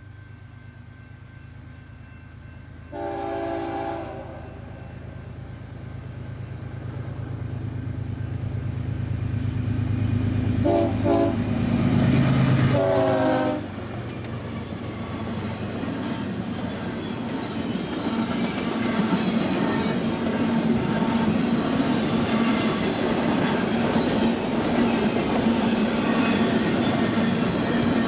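BNSF diesel freight train approaching and passing, led by locomotive 7369: a rising engine rumble, a horn blast about three seconds in and two more as the locomotive goes by at its loudest, then the cars rolling past with steady wheel clatter.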